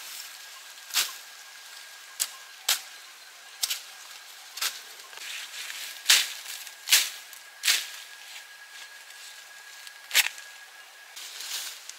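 About ten sharp knocks or chopping strikes, irregularly spaced, with a thin steady high whine beneath most of them.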